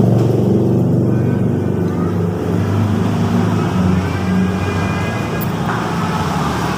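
A road vehicle's engine running steadily close by, a low hum with traffic noise.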